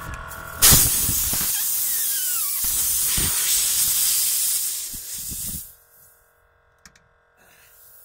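Compressed air hissing out of a nail puncture in a car tire's tread as the plug kit's tool is pulled out. A sudden loud hiss starts about half a second in, runs about five seconds with a falling whistle in it, then dies away.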